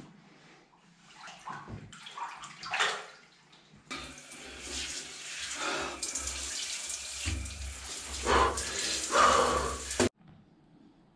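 Water splashing in a bathtub, then a handheld shower head spraying water onto a person and the tub from about four seconds in, a steady rush that swells louder near the end and cuts off abruptly.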